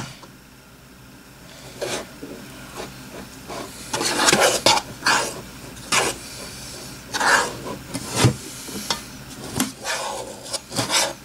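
Slime being stirred and scraped around a container with a utensil, in irregular rubbing, scraping strokes. The slime is chunky, with lumps of dried-out Play-Doh mixed in.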